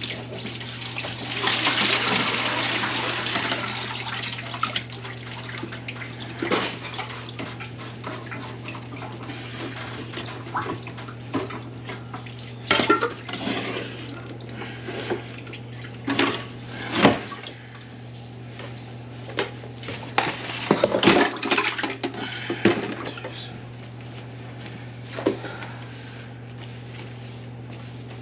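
Water running into a kitchen sink for a few seconds, followed by scattered clanks and knocks at the sink, over a steady low hum.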